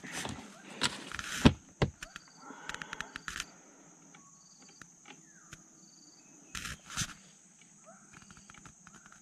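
Steady high buzz of insects such as crickets, with short chirps about once a second. Scattered knocks and rustles of handling in the first two seconds and again about two-thirds of the way through.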